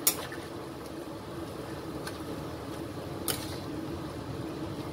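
Pot of stew cooking on a stove, with a steady low rumble. A spoon clinks sharply against the pot twice, once at the start and again about three seconds in.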